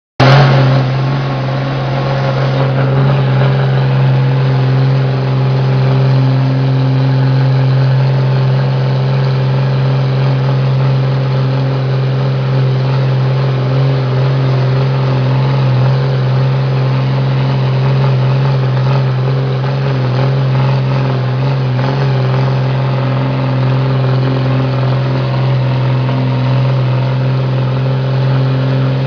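Diesel engine of a Mercedes-Benz 1513 truck running at a steady speed, a loud, even drone with no change in pitch throughout.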